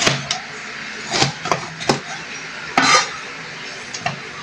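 Chef's knife cutting a bell pepper on a plastic cutting board: a handful of separate sharp knife strikes on the board, with a longer, louder scrape of the blade across the board a little under three seconds in.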